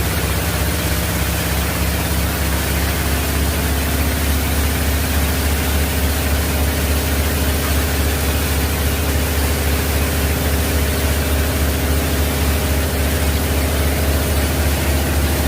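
Wood chipper machine running steadily, an even low hum with hiss and no chipping impacts.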